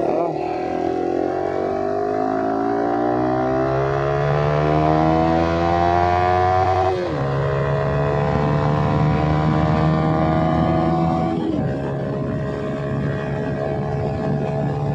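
Yamaha R15 V3's single-cylinder engine through an Akrapovic slip-on exhaust, pulling through the gears while riding. The pitch climbs steadily, drops sharply at an upshift about halfway through, climbs again, and drops at another shift about three-quarters through before holding steady.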